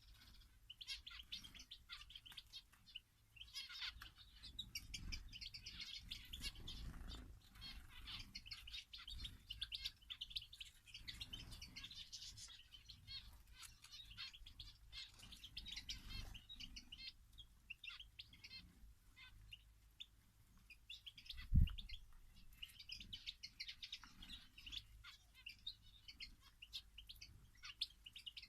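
Many small aviary birds chirping and twittering together without a break, with soft low fluttering noises on and off. One dull low thump about three-quarters of the way through is the loudest sound.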